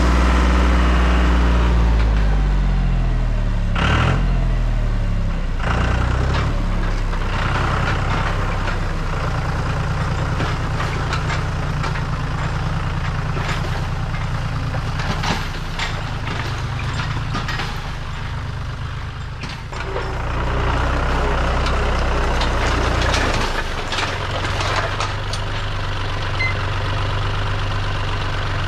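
John Deere 5205 tractor's three-cylinder diesel engine running, its speed rising and falling over the first few seconds and then holding steady as the tractor moves through the brush. Many short sharp cracks and snaps sound over the engine through the middle of the stretch.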